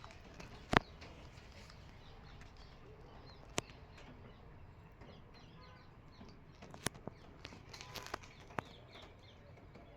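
A few scattered sharp clicks or knocks, the loudest about a second in, over a faint outdoor background with birds chirping.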